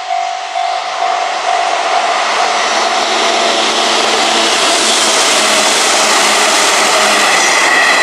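Japanese level-crossing warning bell ringing in quick repeated strokes as an electric train approaches; the train's running noise swells steadily and swamps the bell as the train reaches the crossing near the end.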